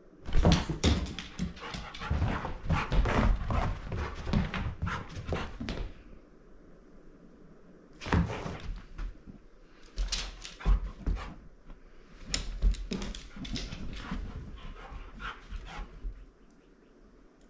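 Great Pyrenees mix puppy playing wildly: barking and whining among rapid thumps and clicks on the floor. The noise comes in bursts separated by short lulls.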